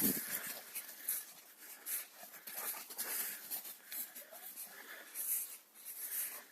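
A Staffordshire terrier breathing hard and snorting while it plays, in irregular noisy huffs.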